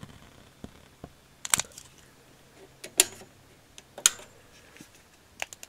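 A handful of sharp clicks and knocks, the loudest roughly a second apart: a rack amplifier's rocker power switch being flipped and the equipment being handled. A faint steady fan hiss dies away near the start.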